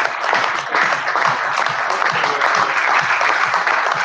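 Applause from an audience and the people on stage: many hands clapping in a steady, dense patter.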